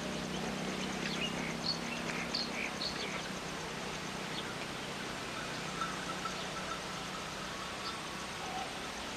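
Outdoor ambience by the water: a steady low hum under an even background hiss, with several short high chirps in the first three seconds.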